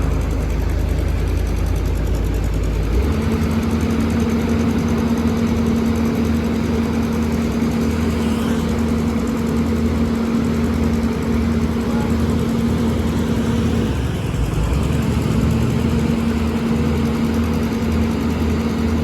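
Komatsu PC210 excavator's diesel engine running steadily at low revs. Its note shifts about three seconds in and dips briefly about three quarters of the way through.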